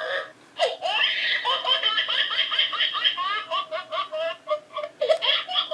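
Small Halloween squeeze toy playing a recorded, high-pitched laugh, a quick run of rising and falling notes, after a short pause under a second in.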